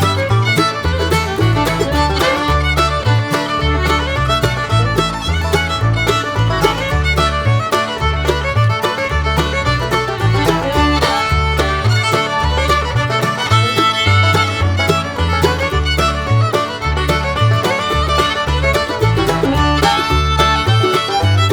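Background music with a steady, rhythmic bass line.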